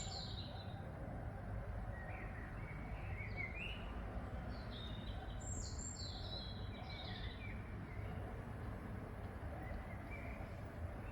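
Songbirds chirping and singing in short phrases, in clusters near the start, about two to three seconds in, and about six seconds in, over a steady outdoor hiss of background noise.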